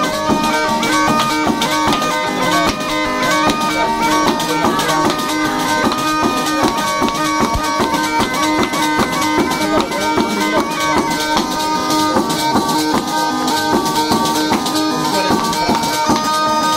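Zampogna, the southern Italian bagpipe with a goatskin bag and two chanters, playing a dance tune over steady held drone notes, with a tamburello, a jingled frame drum, beating a steady rhythm.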